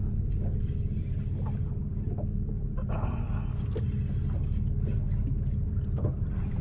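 Small fishing boat's motor idling: a steady low rumble with an even hum, and a brief rush of noise about three seconds in.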